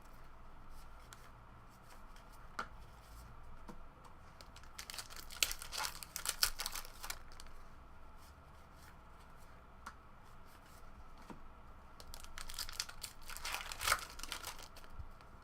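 Trading-card pack wrappers being torn open and crinkled, with cards shuffled and handled in between. The crackling comes in bursts, busiest twice, about halfway through and again near the end.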